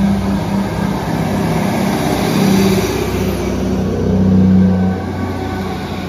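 Class 158 diesel multiple unit pulling out and passing close by, its underfloor diesel engines droning steadily under power. It is loudest about four seconds in, then eases as the train moves away.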